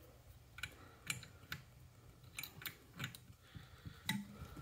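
Faint, scattered light clicks and taps of a small flat wrench working a Nylock prop nut as a three-blade propeller is snugged down on a drone motor.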